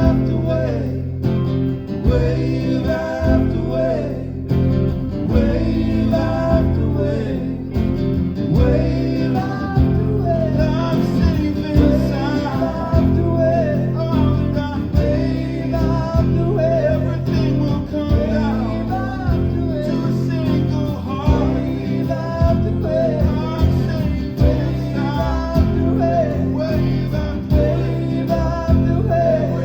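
Live band playing a guitar-backed song with singing throughout, in the song's repeated refrain.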